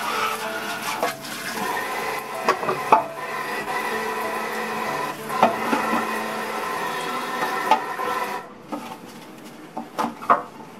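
Running water with scattered knocks, cutting off about eight seconds in; a few light clinks follow.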